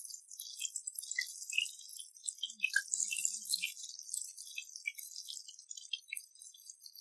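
Batter-coated prawns frying in hot oil in a pan: steady sizzling with many small crackles and pops.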